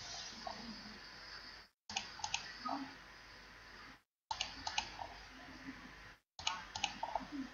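Computer mouse clicks, in small quick clusters about every two seconds, over a faint hiss. The sound cuts out completely for a moment three times.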